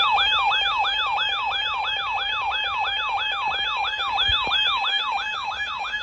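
Electronic siren-like alert tone: rapid falling sweeps, about four a second, over a steady tone, sounding as the attention signal for a severe thunderstorm warning broadcast.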